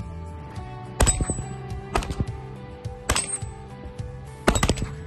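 Shots fired on a range: single shots about a second apart, then a quick string of three or four, several of them followed by a brief high metallic ring.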